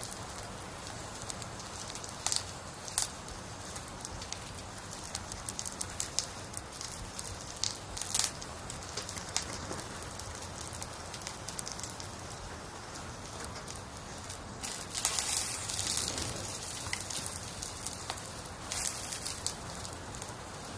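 Firewood burning in a campfire: sharp, irregular crackles and pops over a steady hiss, with a louder flare of hissing about fifteen seconds in.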